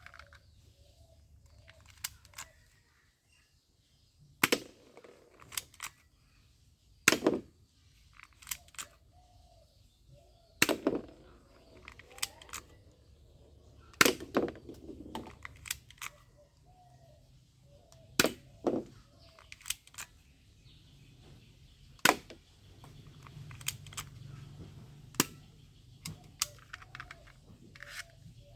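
Toy guns firing: sharp pops every few seconds, with lighter clicks between them.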